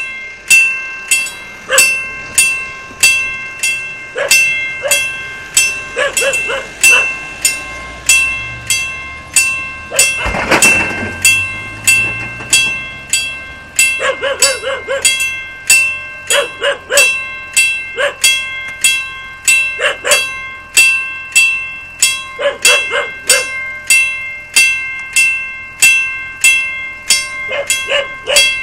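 Level-crossing warning bell ringing in even, sharp strikes, about three strikes every two seconds, each ringing on. A vehicle passes about ten seconds in, and a dog barks in short bursts now and then.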